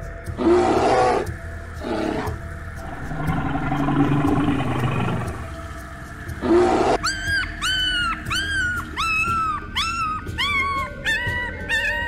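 Brown bear growling and roaring in several separate bursts, followed from about halfway through by a quick run of short, high-pitched whimpering cries, two or three a second.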